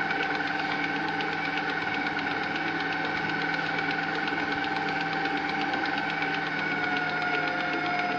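Electric dough kneader (stand mixer) running, its spiral dough hook working bread dough in a metal bowl: a steady motor whine with a fast, fine rattle. The whine dips slightly in pitch about six seconds in.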